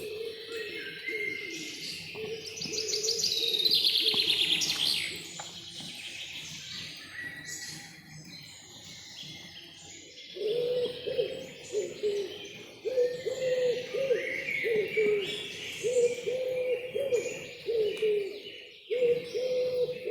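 Forest birdsong: several birds chirping and trilling high, with a loud rapid trill a few seconds in. From about halfway, low hooting notes repeat over and over underneath.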